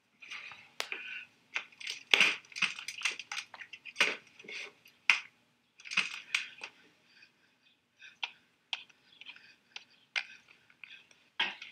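Light, irregular clicking and clattering, like the legs of an aluminium walking frame knocking down with shuffling steps. Sparser, fainter clicks follow near the end as buttons on an old TV remote control are pressed. A faint low hum runs underneath.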